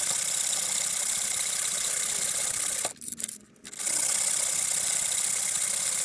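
Miter saw running steadily while cutting an acrylic pen blank to length, with a brief drop about three seconds in.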